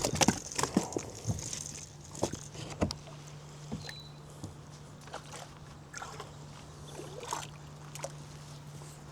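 Water sloshing around a kayak, with knocks and taps on the hull, most of them in the first three seconds.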